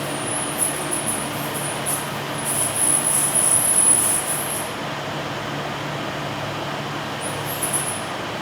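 Automated machining cell running: a steady machinery hum with a very high-pitched whine that comes and goes, loudest about three to four seconds in.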